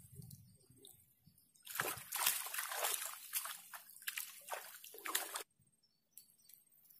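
Water splashing and sloshing close by at a pond's edge, an irregular run of splashes for about four seconds that cuts off suddenly.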